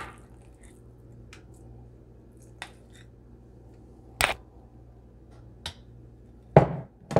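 A metal spoon clicking and knocking against a glass bowl and baking dish while dollops of ricotta are dropped onto lasagna noodles: scattered sharp clinks a second or so apart, the loudest about four seconds in and a heavier knock near the end, over a faint steady hum.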